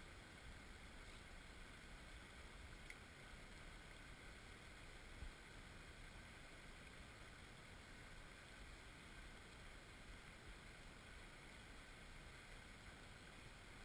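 Near silence: a faint steady outdoor hiss with a little low rumble, and a soft bump about five seconds in.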